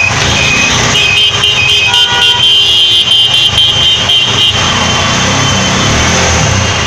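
Traffic on a flooded street: a few short beeps, then a vehicle horn honking in a run of repeated blasts for about three and a half seconds. Engine noise runs underneath, its low note coming through more clearly near the end.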